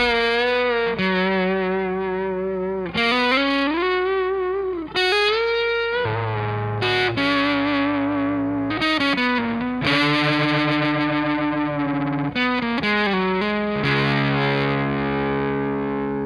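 Electric guitar played through a Sweet Leo overdrive pedal: a lead line of single notes with string bends, ending about fourteen seconds in on a held chord that rings out.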